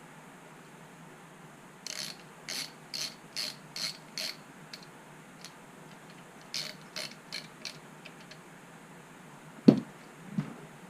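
Hand socket ratchet clicking in two short runs of even strokes, about two to three clicks a second, as screws are driven into the vise jaws. A solid metal knock follows near the end.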